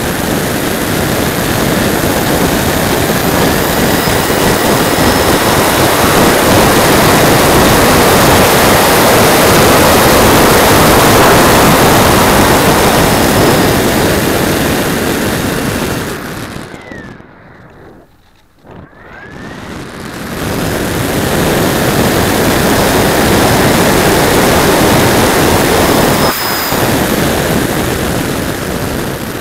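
Rush of airflow and the whine of a Radjet's 3800kv brushless motor spinning a 5x5 propeller, heard on the plane's own onboard keyfob camera. About sixteen seconds in, the motor winds down and the sound falls almost to nothing for a few seconds, then the motor spools back up and the rush returns.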